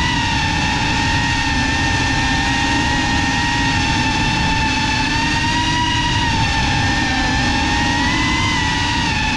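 FPV quadcopter's motors and propellers whining steadily, recorded by the onboard camera, the pitch dipping and rising slightly with throttle over a rushing noise underneath.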